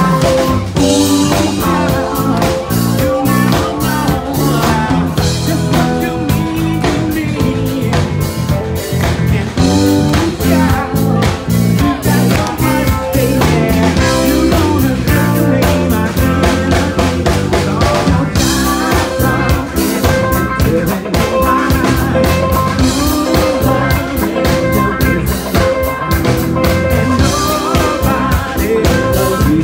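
Live band playing a song loud and steady, with drum kit, guitar and singing.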